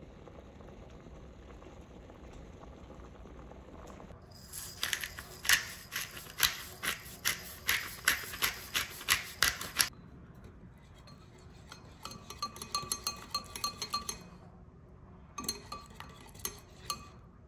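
A pot of pasta water boiling steadily, then a run of loud, sharp clicks about two a second. After that a wire whisk beats egg yolk and cheese in a glass bowl in two quick bursts, the wire tines tapping and ringing against the glass.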